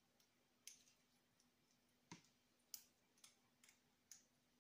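Faint, scattered metal clicks and taps, about six of them, as a small hand tool works at the screws of a small nitro model-car engine being taken apart.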